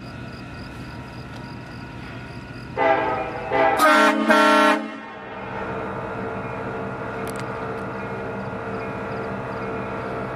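Train air horns sounding a chord: a horn blasts about three seconds in, then two louder short blasts follow until about five seconds, after which a quieter chord holds steady to the end over a steady background rumble.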